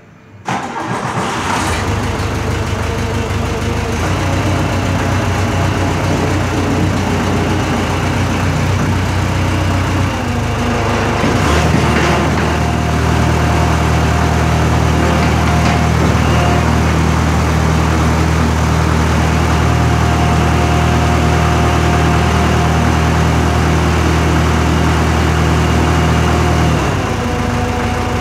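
Case 1845 skid steer's diesel engine cranking and catching, then running steadily. About 11 seconds in the engine note changes to a different steady tone, which drops back about a second before the end.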